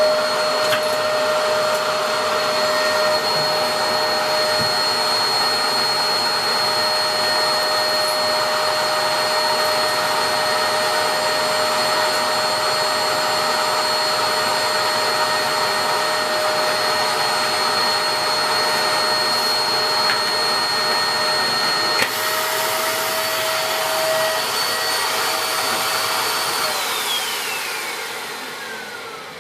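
Dyson DC03 upright vacuum cleaner's 700-watt motor running steadily with a constant whine. A click about three quarters of the way through changes the sound, and near the end the motor is switched off and winds down, its whine falling in pitch as it fades.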